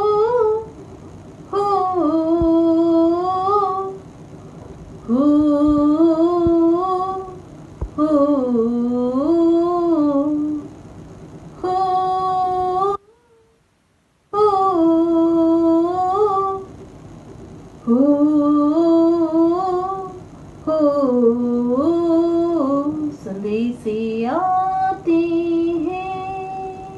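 A woman's solo singing voice, unaccompanied, in phrases of a few seconds each, with held notes and gliding ornaments between them. The sound drops to silence for about a second midway.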